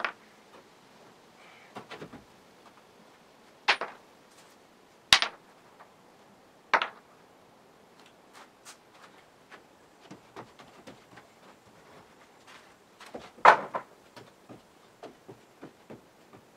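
Old wooden floorboards being pulled up and handled: a series of sharp wooden knocks and clatters, the loudest about 13 seconds in, with lighter taps and creaks between.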